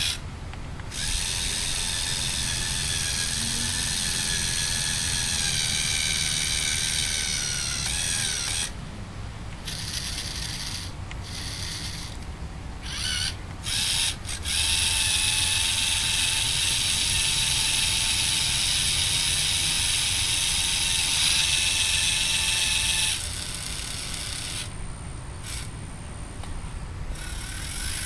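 Lego Mindstorms NXT motors whining through the crane's gears as it hoists a load and moves its arm, starting and stopping several times. The whine drops in pitch just before it stops about eight seconds in, and a louder, steadier run follows in the second half.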